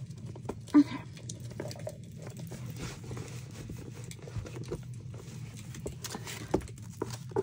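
Paper and plastic page protectors being handled at a desk: light rustling and small taps, with a sharp click just under a second in and a couple more near the end, over a steady low hum.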